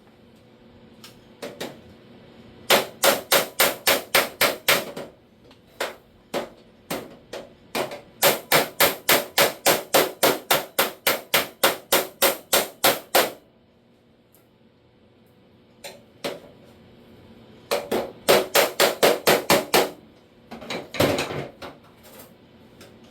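Body hammer striking a steel door repair panel backed by a dolly. The blows come in three quick runs of about four a second, with pauses and a few single taps between, as the welded panel is worked smooth.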